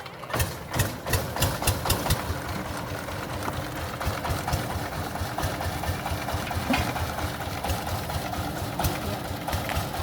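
An engine running steadily, with a run of loud, sharp knocks about three a second during the first two seconds.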